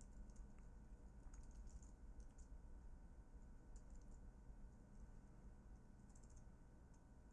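Faint typing on a computer keyboard: a few short runs of soft key clicks over a steady low hum.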